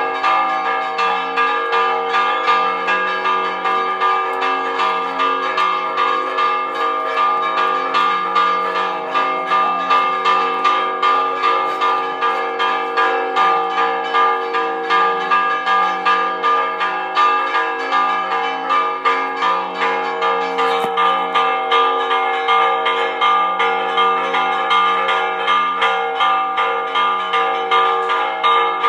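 Church tower bells ringing a repique: a fast, steady run of clapper strokes on several bells, their tones overlapping and ringing on.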